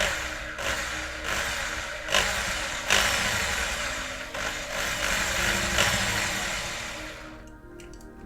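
A power tool running in repeated bursts that start sharply and then trail off, over soft background music; it stops about a second before the end.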